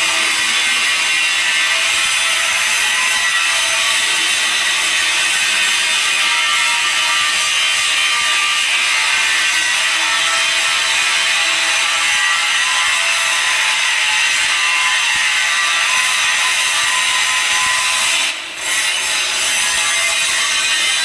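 Welding arc running steadily on a pipe joint, a continuous crackling hiss that drops out briefly about 18 seconds in and then picks up again.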